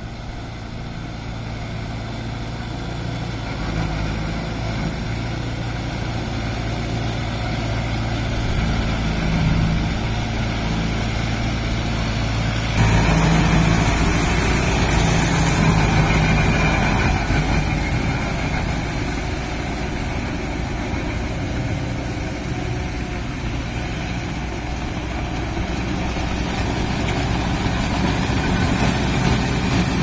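Kubota MU5502 4WD tractor's diesel engine running steadily under load as it drives a rotary tiller through wet paddy mud, growing louder as it comes closer. About 13 seconds in the sound turns suddenly louder and fuller, heard close up beside the working tiller.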